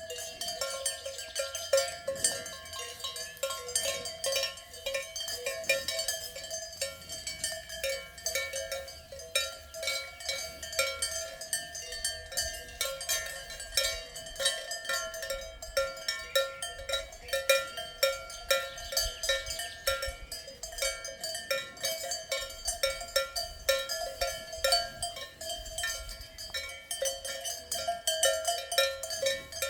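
Swiss cow bells clanking irregularly, several strikes a second, with overlapping ringing tones.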